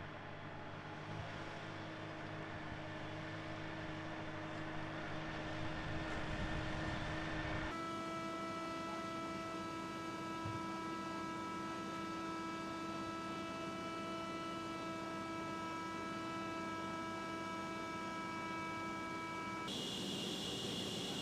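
Jet aircraft engine running steadily with a constant whine over a rushing noise. The sound changes abruptly twice, about 8 s in and near the end, where the footage is cut between shots.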